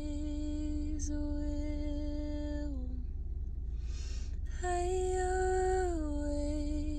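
A woman singing alone, holding long notes. One held note steps down near three seconds in, she takes a quick breath about four seconds in, then a higher held note slides down and holds. A steady low hum sits underneath.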